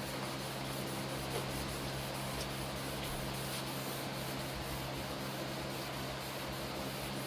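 Wet sandpaper rubbing back and forth by hand on a plastic headlight lens in quick, even strokes, over a steady low hum.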